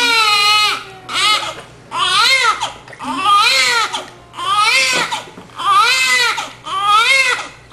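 Newborn baby crying: a run of short, high-pitched wails, about one a second, each rising and falling, with short gaps between.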